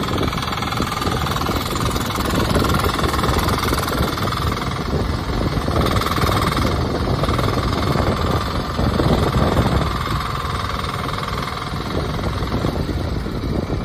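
Mini excavator's small Kubota diesel engine running steadily, with a high whine above the engine note that drops away near the end.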